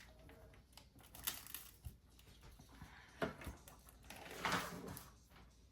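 Faint clicks and taps of a phone and its charging cable being handled and plugged in, with a sharper tick a little past three seconds in and a short soft rustle near the end.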